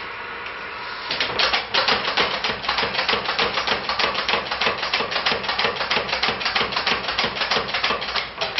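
Power hammer pounding a red-hot iron bloom between its dies: rapid, evenly spaced blows that start about a second in and stop just before the end. It is forging the bloom from an iron smelt, the hot iron and slag throwing sparks.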